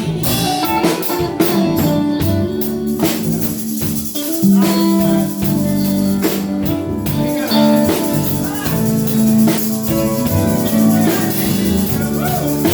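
Instrumental music between sung lines: guitar with tambourine and drum kit keeping a steady beat.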